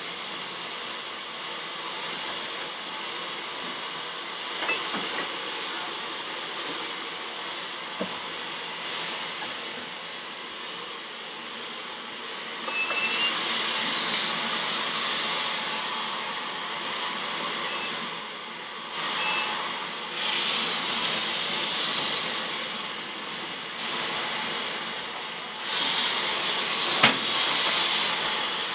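Bagnall 0-6-0ST saddle tank steam locomotive No. 401 moving slowly, with a steady low hiss and two light knocks, then three loud bursts of steam hissing from it: about halfway through, again about two-thirds of the way, and the loudest near the end.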